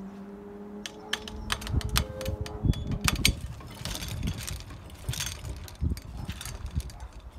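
Level crossing barrier mechanism humming steadily as the boom finishes rising, the hum cutting off about a second in. A run of irregular clicks and knocks follows.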